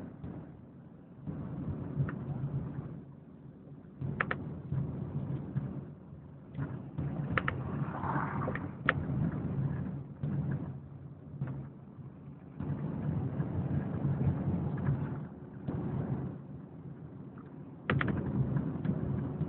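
Car engine and road rumble while driving, swelling and easing in uneven surges every few seconds, with a few sharp clicks.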